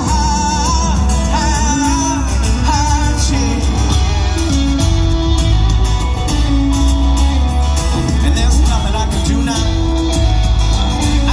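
Live rock band playing through a concert PA: lead vocal over electric guitars, keyboards, drums and heavy bass. The sung line stands out most in the first few seconds.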